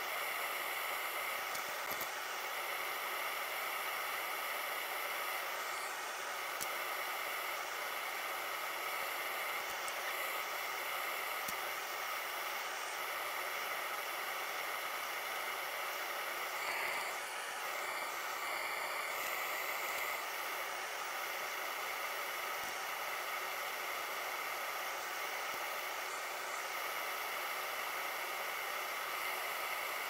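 Steady hiss with faint steady high tones and no distinct events: background noise at the workbench.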